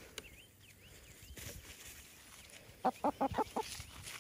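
A domestic hen, held in the hands for wing clipping, gives a quick run of about five clucks about three seconds in.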